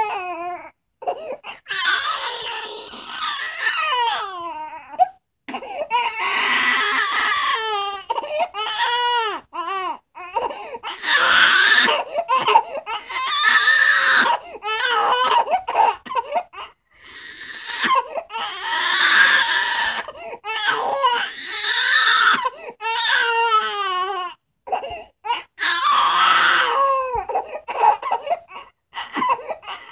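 Infant crying in repeated wavering wails of one to three seconds each, with short breaks for breath between them.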